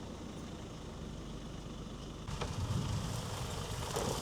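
Rely R8 pickup truck's engine running with a low rumble that suddenly grows louder just past halfway.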